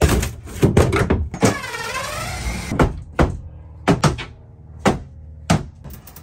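Wooden closet shelves being worked loose and lifted out of the cabinet: a series of irregular knocks and clunks of wood on wood, about ten of them, with a short wavering whine about a second and a half in.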